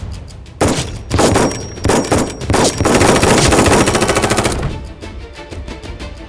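Rapid automatic gunfire sounding for the Nerf blaster's shots. It comes in several short bursts starting about half a second in, then one continuous burst that stops after about four seconds, over background music with a steady beat.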